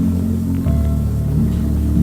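Background music with held notes over a strong bass line, which moves to a lower note about two-thirds of a second in.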